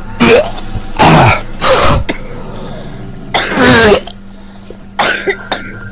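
A person coughing hard, five harsh bursts spread over a few seconds.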